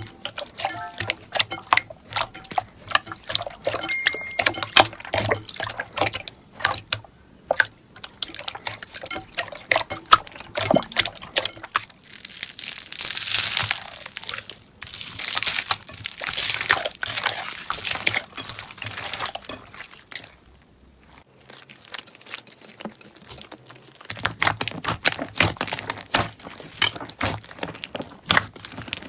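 Hands squishing, poking and stretching slime, making quick wet clicks and pops, with a stretch of softer hissing squelches about midway.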